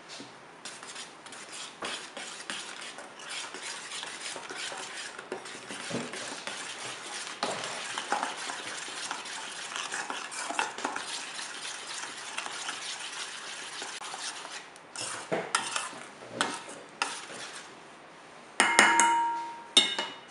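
Metal spoon stirring sugar into a wet purée in a stainless steel bowl, scraping and clinking against the bowl steadily, then a few slower strokes. Near the end the spoon strikes the bowl twice, and the bowl rings briefly after the first, louder strike.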